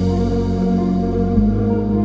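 Background music: slow, sustained chords that change a little after halfway.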